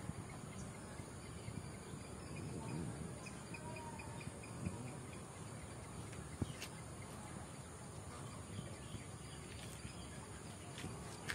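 Insects trilling steadily and high-pitched, with a quick run of short repeated chirps in the first two seconds and a few faint clicks.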